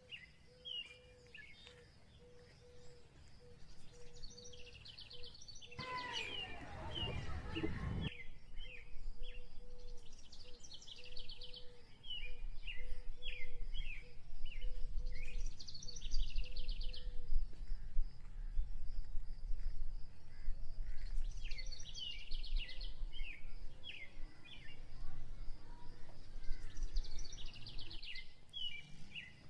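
Outdoor field ambience: a songbird repeats a phrase about every five to six seconds, a buzzy trill followed by a run of short quick notes. Wind rumbles on the microphone, gusting hardest in the second half, and a faint steady hum is heard in the first half.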